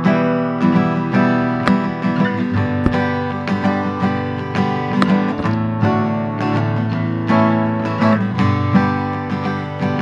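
Background music: acoustic guitar playing a steady rhythm of plucked notes and chords.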